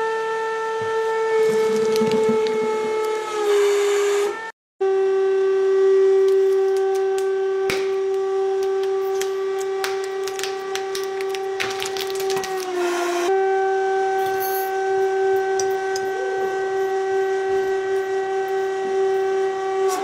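Hydraulic press running with a steady high-pitched whine from its pump, the pitch shifting a little as it takes load, and the whine breaks off for a moment about four and a half seconds in. From about eight to thirteen seconds in, sharp crackling and snapping come through as the ram crushes material.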